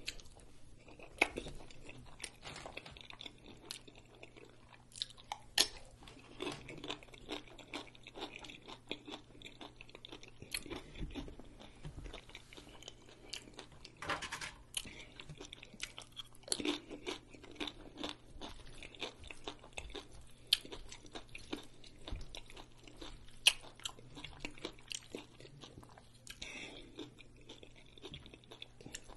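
Close-up chewing of a smoked brisket rice bowl and tortilla chips: wet mouth sounds and lip smacking, with sharp crunches now and then.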